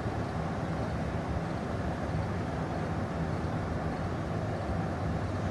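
Steady low engine rumble of idling emergency vehicles, with an even, unchanging hum.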